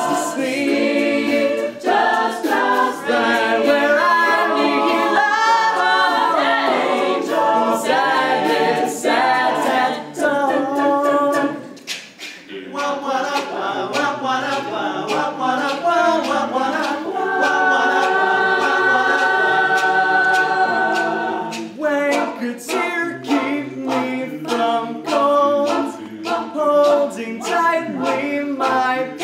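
A mixed a cappella group singing in close harmony, with sharp percussive clicks ticking through the chords that grow denser near the end. The voices thin out briefly about twelve seconds in, then come back.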